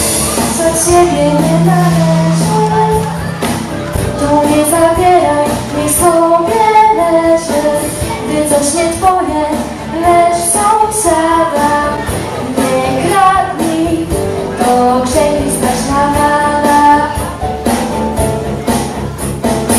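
Choir of children and teenage girls singing a song in unison, with instrumental accompaniment and a steady beat.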